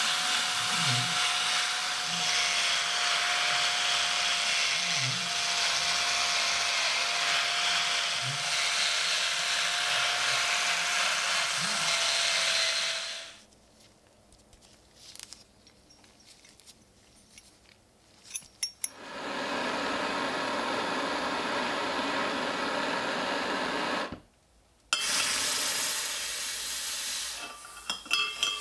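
Cordless drill spinning a twisted wire brush through the eye of a rusted iron pickaxe head, a steady whir with the rasp of bristles scrubbing off rust. About halfway through it stops suddenly, leaving near quiet with a few faint knocks. A second steady rushing noise then runs for several seconds, breaks off briefly, and returns near the end.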